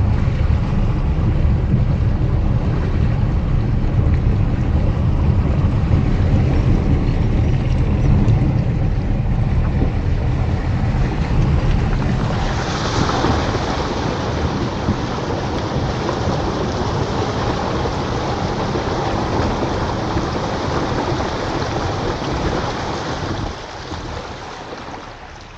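Honda Amaze sedan wading through a river: water rushing and splashing against the underbody and wheel arches over a heavy low rumble. The splashing hiss grows louder about halfway through and dies away near the end.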